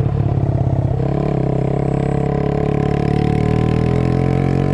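Suzuki Intruder 125's single-cylinder four-stroke engine pulling away: a choppy beat for about a second, then revs climbing slowly and steadily in gear.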